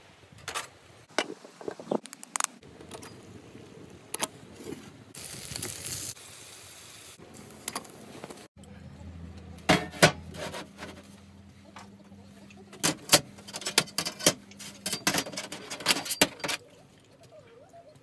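Thin sheet-steel panels of a folding camp stove clinking and clattering as they are handled and set down, in sharp irregular knocks. From about halfway a low steady hum runs underneath.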